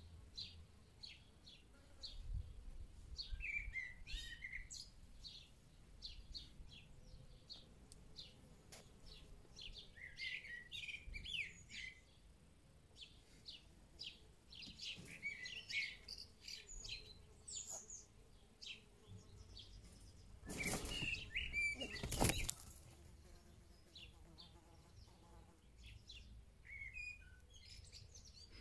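Birds chirping in many short, quick calls, some rising and falling. About two-thirds of the way through, a louder rushing noise lasts about two seconds.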